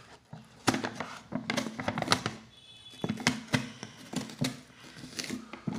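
Foil induction seal on a plastic protein-powder tub being poked through and torn open by fingers: a run of irregular sharp crackles and taps.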